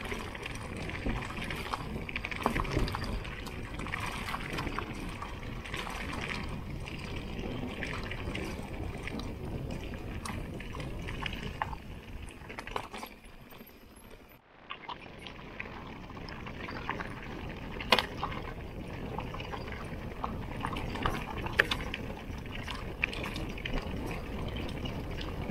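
Mountain bike riding down a rough trail: steady tyre and wind noise with constant clicking and rattling from the bike, easing off briefly about 14 seconds in before picking up again.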